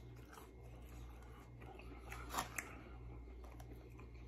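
Close-up chewing of crispy breaded fried zucchini: soft crunches and wet mouth clicks, with two sharper crunches about halfway through. A low steady hum runs underneath.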